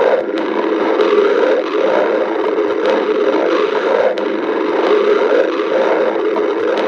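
Stomach growling, a steady, continuous rumble.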